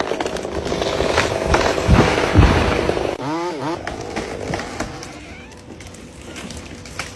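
Chainsaw running, with sharp wood cracks and several heavy thumps in the first few seconds. A short sliding voice-like sound comes about three seconds in, then quieter rustling noise.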